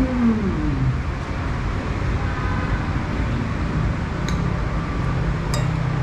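Steady background street and traffic noise, with two sharp clinks of a spoon against a dish, about four and five and a half seconds in.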